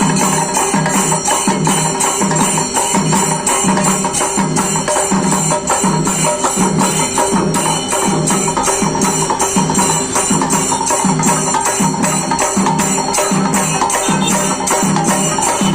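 Devotional music with a steady, even percussion beat, about three beats every two seconds.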